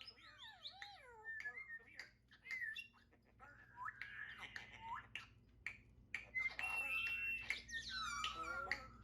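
Pet parrot calling: a string of squawks, gliding whistles and clicks, with a louder, longer call about six seconds in.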